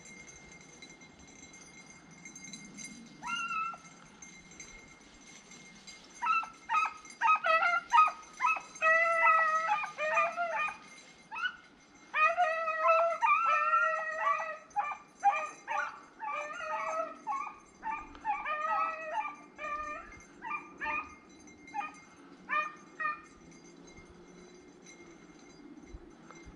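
Rabbit-hunting hounds baying on a rabbit's trail: one short call about three seconds in, then a long run of repeated baying and yips that breaks off briefly about halfway and stops a few seconds before the end.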